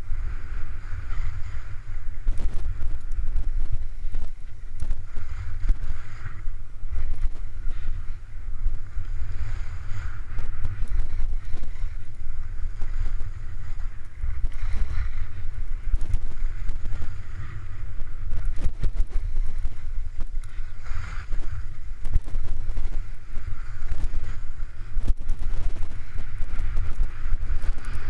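Wind buffeting the microphone of an action camera while skiing downhill at speed, a heavy steady rumble, with the hiss of skis on packed snow swelling and fading every few seconds with the turns.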